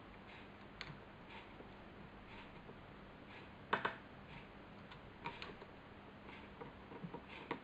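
Faint, scattered small clicks and ticks of a precision Phillips screwdriver turning a tiny screw into the plastic head of a Nikon SB800 flashgun, with one sharper click nearly four seconds in.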